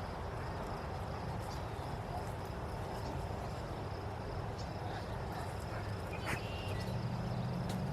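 Outdoor insect chorus, a steady high trill over a low rumble of background noise, with a few scattered light ticks. A low hum comes in near the end.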